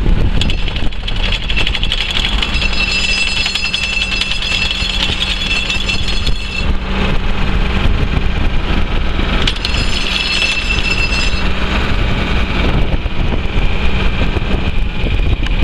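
John Deere 4640's 7.6 L six-cylinder diesel engine running steadily. A high whine joins in twice, for a few seconds each time.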